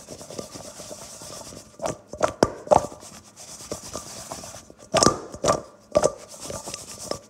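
Raw sweet potato sticks dusted with corn flour being tossed and rubbed together in a bowl to coat them: a steady scraping rustle, broken by bunches of sharp knocks about two and a half seconds in and again around five to six seconds in.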